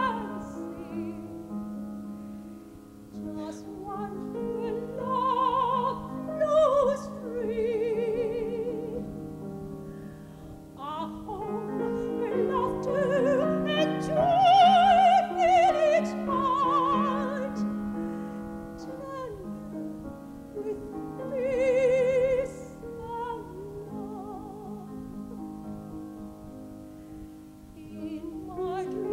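Soprano singing an operatic aria with wide vibrato, accompanied by a Steinway grand piano. Her voice swells to its loudest about halfway through, with smaller peaks before and after.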